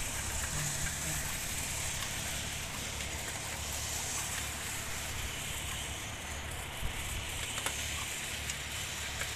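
Wind buffeting a phone microphone while riding a bicycle over a packed-earth road bed, with a steady rush of noise and a few light clicks and crunches from the tyres and bike.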